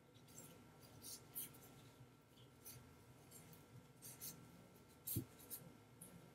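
Small scissors snipping through a sheet of craft foam: a run of faint, irregular snips, with one louder snip about five seconds in.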